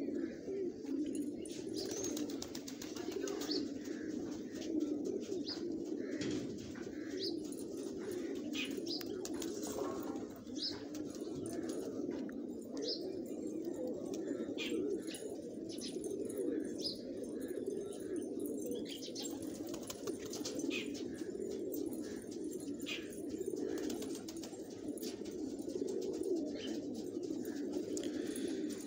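A flock of fancy domestic pigeons cooing continuously, many birds overlapping into one steady low sound, with short high chirps scattered throughout.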